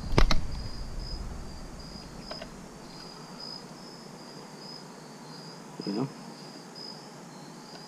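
Crickets chirping in a steady, pulsing high trill. A couple of sharp clicks from the metal mirror bracket being handled come near the start, and a short hum of a man's voice about six seconds in.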